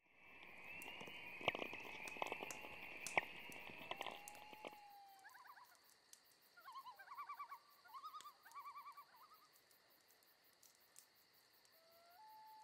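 Faint soundtrack effects: a crackling hiss with scattered clicks that cuts off abruptly about five seconds in. Then come several runs of quick, warbling chirps, and a thin steady tone near the end.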